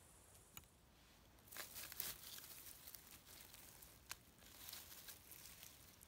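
Faint rustling and crackling of moss, dry twigs and grass on the forest floor being disturbed, in two short spells about a second and a half in and near the end, with a few single clicks between.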